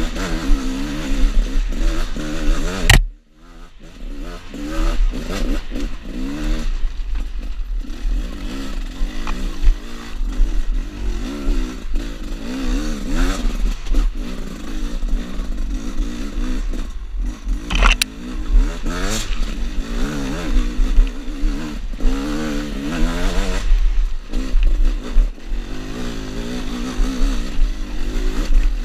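Gas Gas EC 300 two-stroke enduro motorcycle engine being ridden on a trail, its revs rising and falling over and over as the throttle is worked. A sharp click about three seconds in, after which the engine sound briefly drops away before picking up again.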